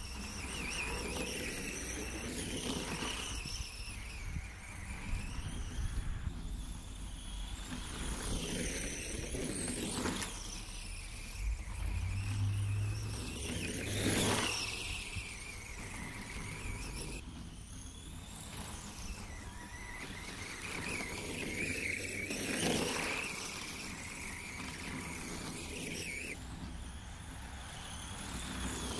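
Electric motor and drivetrain of an Arrma Senton 4X4 radio-controlled short-course truck whining as it drives through snow, the pitch rising and falling with the throttle. It gets louder a few times, most strongly about fourteen seconds in.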